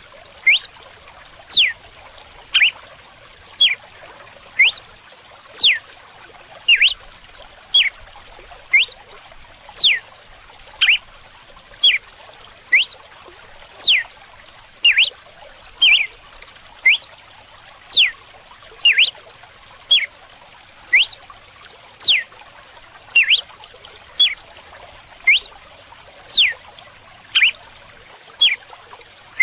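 Red-cowled cardinal (galo-de-campina) singing its whip song: loud, clear whistled notes about one a second, short lower notes alternating with sharp sweeping ones. Running water trickles steadily underneath.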